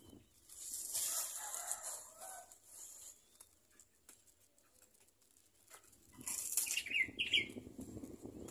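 Young puter doves fluttering and shuffling in a crinkly plastic bag of millet seed, a rustling bout in the first few seconds and another from about six seconds in. A few short high chirps come near the end.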